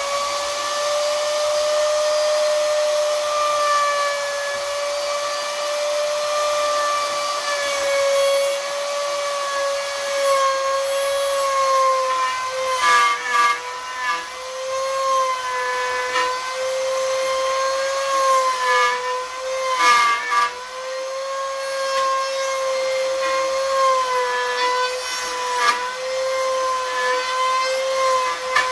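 The electric motor of a power tool on a homemade wood-drilling machine runs at high speed with a steady whine. Its pitch sags briefly several times, around the middle and about two-thirds in, with some scraping clicks, as the bit is loaded cutting a hole in the wood.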